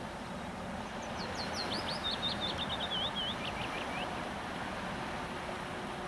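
A songbird sings one phrase of about three seconds: a quick run of short downslurred notes that steps down in pitch and ends in a few lower sweeps. Steady background noise runs under it.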